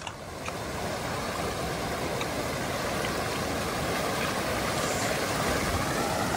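Shallow mountain creek running over a rocky bed: a steady rush of water.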